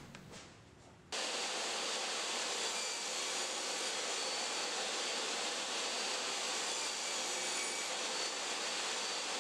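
Table saw running, a steady rushing machine noise that starts abruptly about a second in and holds level, with no change from a cut.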